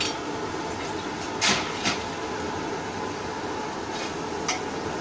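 Blacksmith's forge running with a steady blowing rumble while the bar is taking a heat. A few short metallic scrapes or clinks cut through it, the loudest about a second and a half in, then near two seconds and again at about four and a half seconds.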